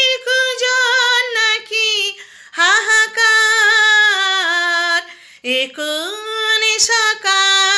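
A woman singing a Bengali song solo with no accompaniment, drawing out long notes with a wavering vibrato, broken twice by short pauses for breath.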